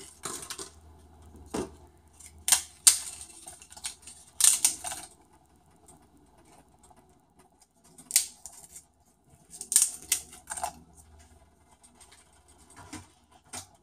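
Crisp fried papad being broken by hand and dropped into a pot of dal, crackling and crunching in short irregular bursts.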